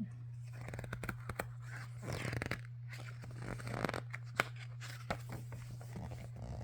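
Paper rustling and a few sharp clicks from the pages of a hardback picture book being handled and turned, over a steady low hum.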